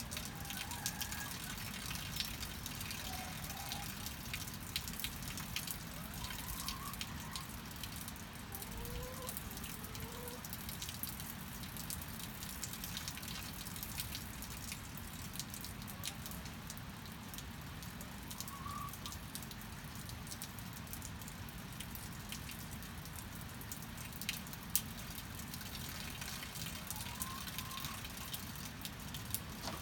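Steady rain with many drops ticking on a surface, and hens in a henhouse giving a few soft clucks now and then.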